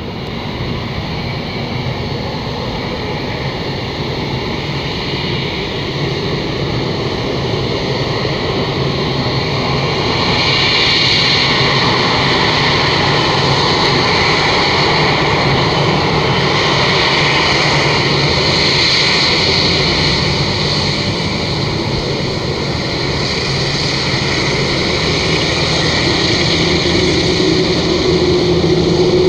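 Boeing 787 Dreamliner's twin turbofan engines running at taxi power as the jet rolls by close up: a steady jet whine over a dense rush, growing louder about ten seconds in and staying high.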